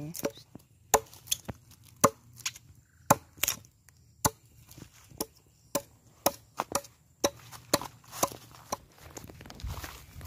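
Axe chopping into the side of a freshly cut wooden log block, irregular sharp strikes about one every half second to a second. The block is being hewn to shape as a wooden pilón mortar.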